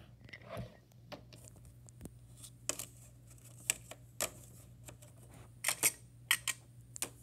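Small plastic toys and a plastic toy box being handled and set down: irregular sharp clicks and taps, several close together near the end, over a low steady hum.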